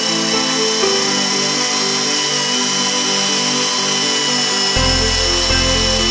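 Background music with a stepping melody and a bass line that comes in near the end, over the steady whine of a chainsaw mill cutting through a log.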